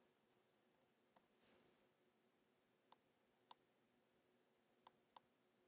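Near silence: room tone with a few faint, scattered computer mouse clicks.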